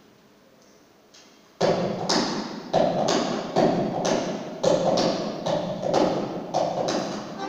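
Bayan and accordion orchestra comes back in after a quiet pause with a series of loud, sharply accented hits, about two a second.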